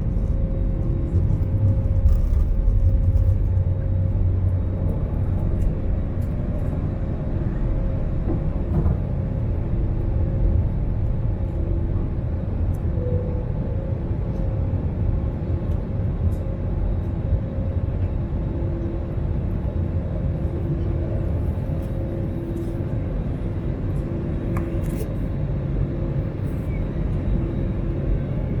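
Steady cabin rumble and hum of an Airbus A320neo with Pratt & Whitney geared turbofan engines running on the ground, heard from inside the cabin. A faint tone within it swells and fades every second or two.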